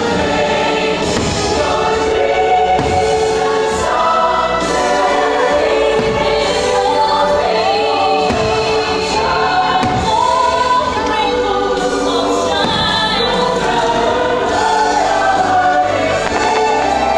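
Fireworks-show soundtrack: music with a choir singing sustained lines, and firework bursts popping over it now and then.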